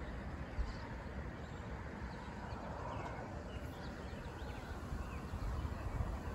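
Steady low wind noise, with a few faint, short bird chirps in the first half.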